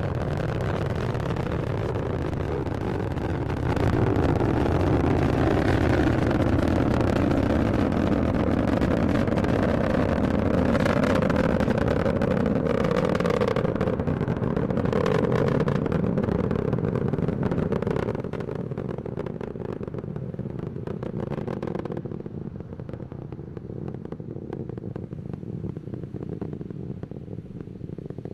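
Falcon 9 first stage's nine Merlin engines heard from the ground during ascent: a dense, loud rumble shot through with crackle. It swells about four seconds in, drops back after about eighteen seconds, then loses its high end and fades as the rocket climbs away.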